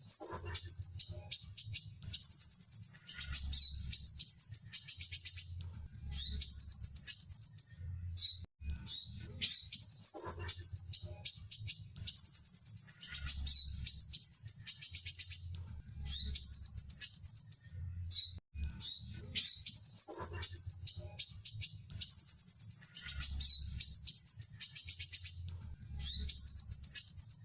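Sunbird song: high, rapid trilled phrases of one to two seconds, repeated over and over with short pauses between them.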